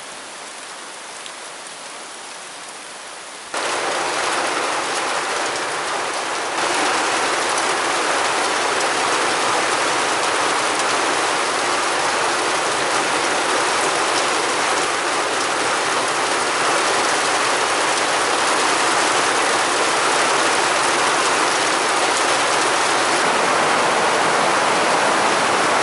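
Heavy rain drumming on a tin roof, a steady dense hiss and patter. It jumps sharply louder about three and a half seconds in, and again about three seconds later.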